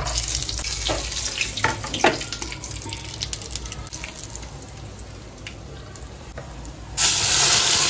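Hot oil sizzling in a steel kadhai as whole spices (bay leaves and dried red chillies) are tipped in for a tempering, with a few light clinks in the first two seconds. About seven seconds in, the sizzling jumps suddenly much louder as a wet masala paste hits the hot oil.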